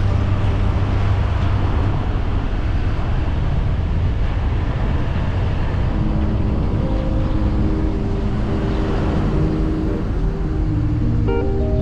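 Steady road and wind noise of a car driving along. Soft background music notes come in faintly about halfway through.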